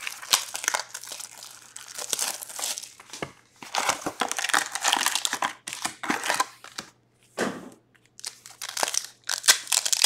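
Plastic and foil packaging of hockey card packs being torn open and crinkled by hand, in stop-start bursts of crackling with short pauses.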